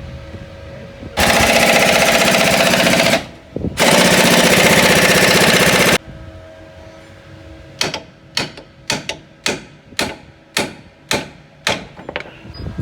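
Pneumatic impact wrench hammering in two long bursts on a seized suspension lower arm bolt, working it loose. About a dozen sharp metal knocks follow, roughly three a second.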